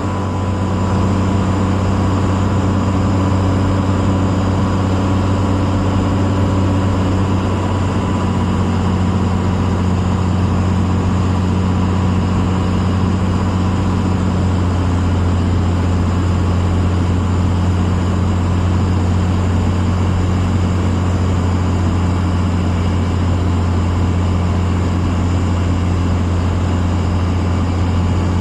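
Cessna 182's piston engine and propeller droning steadily, with a slight change in tone about seven seconds in.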